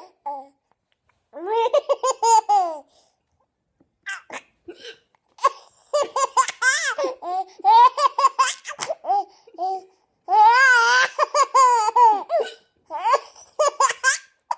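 Baby laughing hard in several bouts of quick, high-pitched laughs, with short pauses in between.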